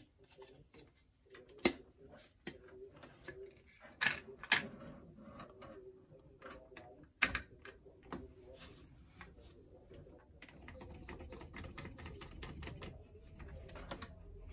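Hard plastic clicks and knocks as an NZXT Kraken 360 pump block is handled and seated onto the CPU mounting bracket. From about halfway a rapid run of small ticks follows as its mounting screws are turned down.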